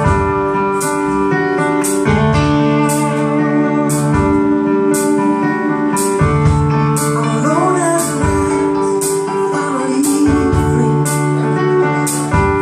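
A live rock band playing amplified keyboard and electric guitar chords that change about every two seconds, with a cymbal struck roughly once a second. A woman's voice sings a short line about halfway through.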